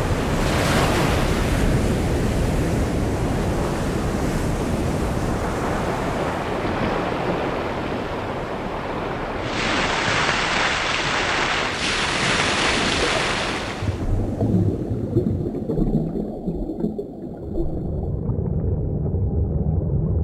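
Heavy surf, with waves crashing and breaking on rocks amid wind, and two louder wave crashes about ten seconds in. About fourteen seconds in it cuts suddenly to a muffled, low underwater rumble.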